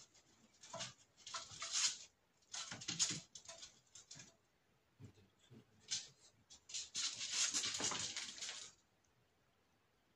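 Kitten scampering and scuffling on a hard floor, paws and claws skittering in four bursts of rustling noise that stop near the end.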